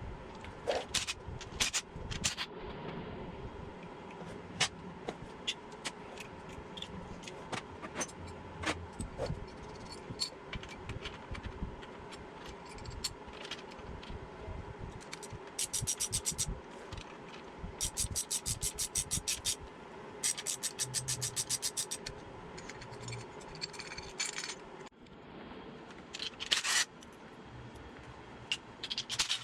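Hand tools working on an air-cooled VW engine's case: scattered metal clinks and scrapes, with several runs of rapid, evenly spaced ratchet clicking in the middle stretch. A shop fan hums steadily underneath.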